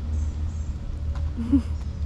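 A steady low rumble, with one short rising animal cry about one and a half seconds in.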